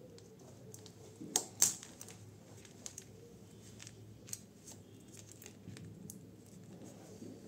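Plastic snap-fit cover of an earphone's in-line control housing being pried off: two sharp plastic snaps about a second and a half in, then scattered faint clicks as the loose cover and circuit board are handled.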